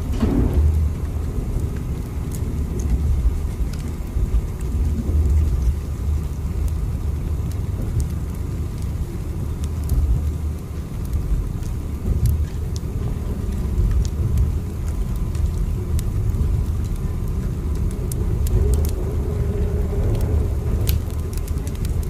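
Steady low rumble of a train in motion, with faint scattered clicks.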